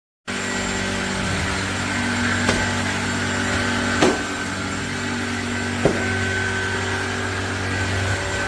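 Kenmore DS1030 cordless stick vacuum running steadily, a loud motor hum with a high whine, cutting in abruptly just after the start. Three short knocks or clicks sound over it, the loudest about four seconds in.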